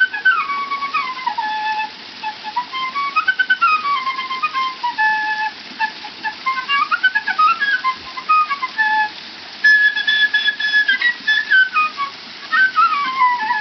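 Bamboo transverse flute played solo: a melody of quick stepwise runs rising and falling, broken by long held notes, one of them high and sustained about ten seconds in.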